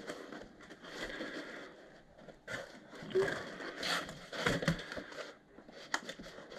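Foam packing insert and cardboard box being handled: irregular scraping and rustling with several light knocks as the foam layer is lifted off a boxed airsoft rifle.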